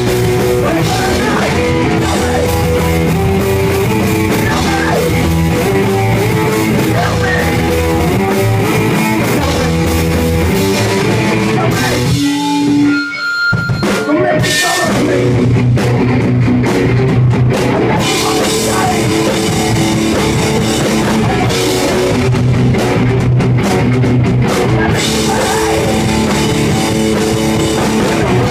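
Live rock band playing, with electric guitar and drum kit. The band briefly drops out about twelve seconds in, leaving a few held notes, then comes back in at full volume.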